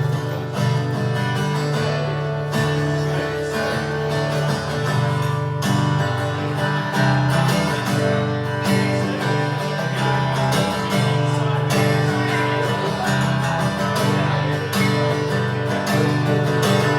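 Acoustic guitar strummed in steady chords, playing the instrumental introduction to a song.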